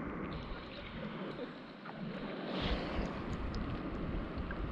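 Water lapping and splashing against a river kayak's hull, with wind buffeting the microphone, heavier from about halfway through.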